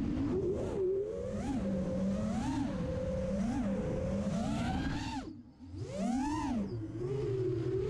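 FPV racing quadcopter's brushless motors (DYS SE2205 2300KV) and propellers whining, the pitch rising and falling with throttle changes as it manoeuvres. About five seconds in the throttle is cut and the sound nearly drops away, then it punches back up in a steep rising whine.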